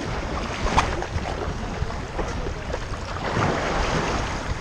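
Wind blowing across the microphone of a GoPro harnessed to a dog's back: a steady rush with a few short bumps and knocks from the camera mount.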